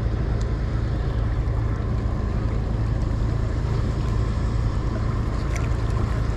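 Steady low drone of a motorboat's engine running, with a constant hum and no change in pace.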